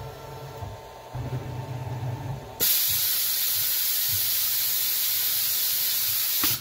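A CNC mill's axis motors run with a low hum and a steady whine, then a compressed-air blast starts abruptly and hisses loudly and evenly for about four seconds before cutting off suddenly. The blast is the tool changer's timed air jet that cleans off the top of the rack's tool fingers.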